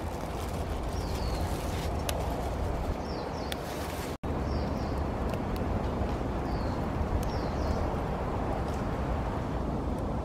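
Steady rushing outdoor noise with a small bird's short, high, falling chirps repeating every second or so, and a few sharp crackles from the wood fire. The sound cuts out for an instant about four seconds in.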